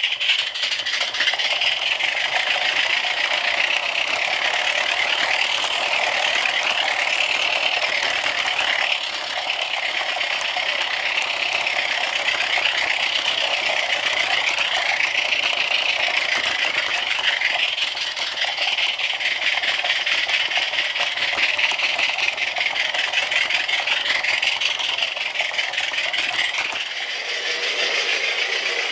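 Mamod live-steam saddle tank locomotive running on its track, heard from the wagon it pulls: a steady mechanical rattle of the running gear and wheels on the rails, swelling and fading about every two seconds.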